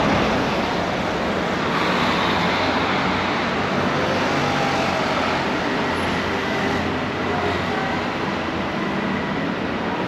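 Steady city street noise of passing road traffic.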